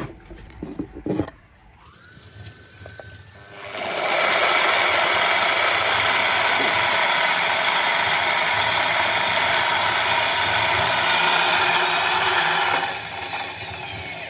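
Electric drill driving a roller grain mill, crushing malt for the mash. After a few knocks, it starts about three and a half seconds in, runs loud and steady for about nine seconds, then stops.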